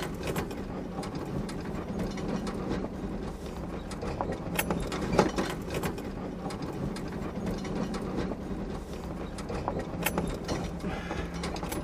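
Cabin sound of an off-road vehicle crawling over a rough trail: the engine runs with a steady low drone while the interior rattles and knocks irregularly over the bumps.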